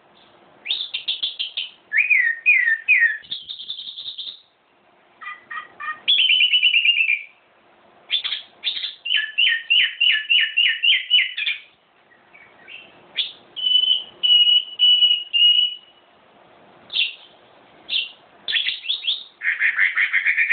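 A songbird singing a varied string of phrases: fast trills, downward-sliding notes, a quick run of repeated chirps and a few held whistled notes, with short pauses between.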